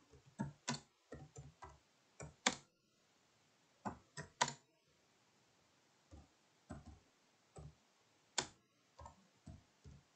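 Faint computer keyboard typing: irregular single keystrokes, a few louder than the rest, with a pause of about a second just past the middle.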